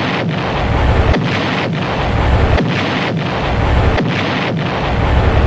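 Explosion sound effect: a long, loud run of blasts, one rolling into the next with deep rumble, in quick succession.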